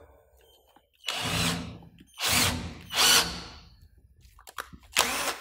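Power drill with a countersink bit chamfering the mouth of a drilled hole before tapping, cutting in several short bursts.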